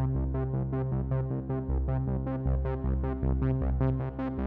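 Background electronic music: sustained synthesizer chords over deep bass notes, with a quick steady pulse.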